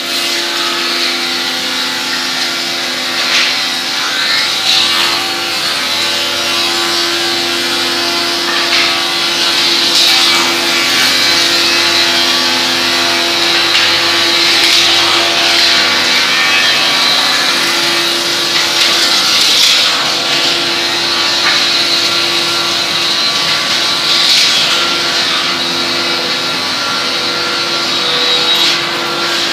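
Woodworking machines and their dust-extraction system running together: a steady mechanical drone with several hum tones under a strong high hiss, swelling briefly every few seconds.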